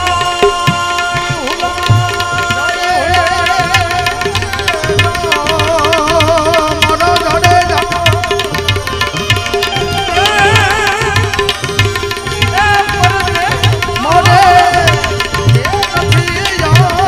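Instrumental interlude of a Gujarati devotional bhajan: tabla keeps a steady beat under a wavering melody line and a sustained drone.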